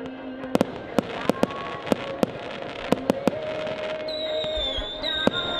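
Fireworks display: a string of sharp bangs and crackles going off at irregular intervals, several a second. A steady high whistle comes in about four seconds in and holds.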